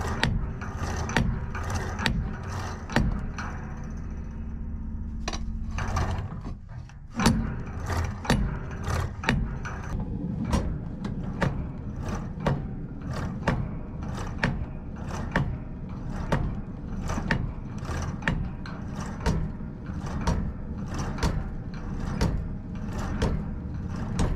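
Spring-loaded treadle hammer with an 8 lb head pounding a hot steel bar on a post anvil, about two blows a second with a brief lull about five to seven seconds in. Its bare return springs twang and ring with each stroke, giving off sci-fi sound effects.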